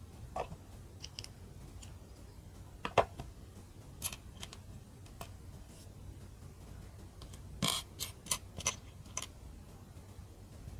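Small plastic mini building bricks clicking as they are handled and pressed together, in scattered single clicks with the loudest about three seconds in, then a quick run of several clicks near the end.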